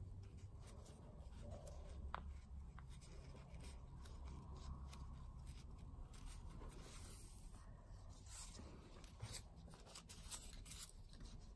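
Faint rustling and rubbing of satin ribbon being folded and hand-stitched with needle and thread, with many small ticks over a low steady hum.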